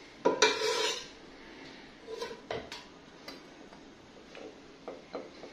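Metal ladle clinking against a steel bowl and a glass baking dish while custard is ladled over cake slices: one loud ringing clink about a third of a second in, then several lighter taps.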